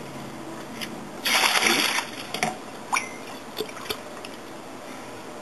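Water poured from a 2-cup measuring cup into a 5-gallon bucket: one quick splashing pour about a second in, followed by a few light knocks.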